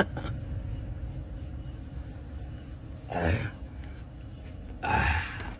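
Steady low hum of a small electric fan running. A man makes two short breathy vocal sounds, like sighs, about three and five seconds in.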